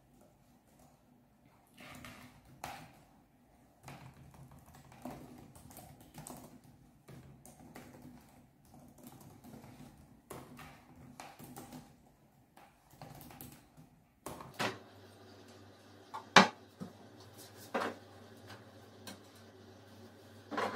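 Typing on a laptop keyboard: soft, irregular key clicks. About fourteen seconds in, a steady hum starts and a few louder, sharp knocks come over it.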